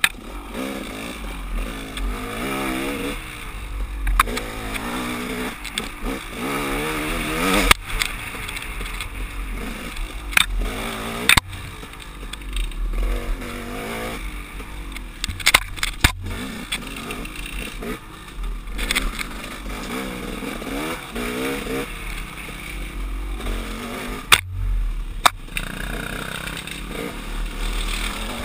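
Two-stroke KTM 300 XC-W dirt bike engine being ridden, its pitch rising and falling constantly as the throttle is worked on and off. Several sharp knocks and clatters from the bike come through the engine noise.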